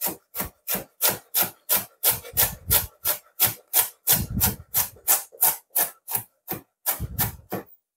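Chef's knife slicing through white cabbage and striking a wooden cutting board, finely shredding it in a steady rhythm of about three cuts a second that stops near the end.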